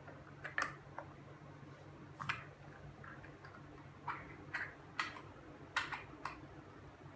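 Light, irregular plastic clicks and taps, about ten in all, as a small clear plastic egg capsule is handled and pressed shut around a lump of plasticine. The capsule does not close.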